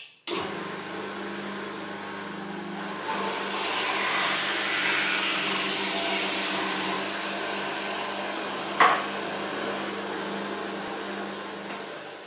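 Electric juicer running with a steady motor hum while carrots and other produce are pushed down its feed chute and ground, the grinding noise swelling in the middle. A sharp click about three-quarters of the way through.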